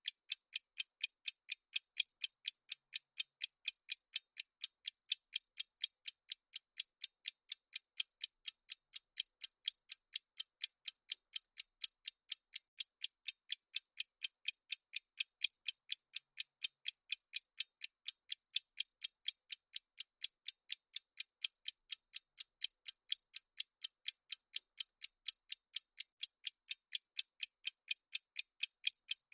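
Clock-style ticking sound effect of a countdown timer: light, even, sharp ticks at about three a second, with no low end.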